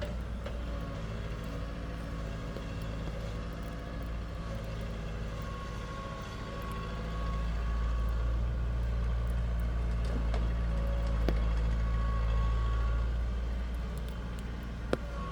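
Heavy construction machine's diesel engine running steadily, growing louder about seven seconds in and easing again near the end, with a sharp knock just before the end.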